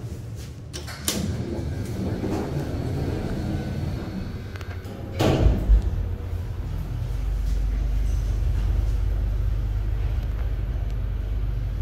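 1980s Hitachi goods lift's sliding doors running and shutting with a loud clunk a little past halfway. Then a steady low hum builds as the lift machinery runs.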